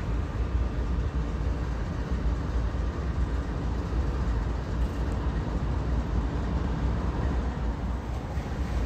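Union Pacific diesel locomotives running past at the head of an eastbound coal train: a steady low engine rumble with rail and wheel noise.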